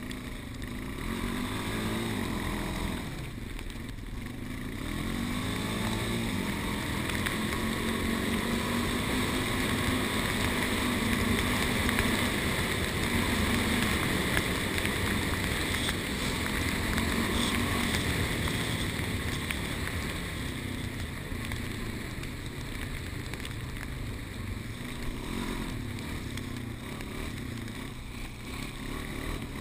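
Bike riding along a snow-covered street: steady tyre and wind noise, with a low hum that rises and falls in pitch as the speed changes.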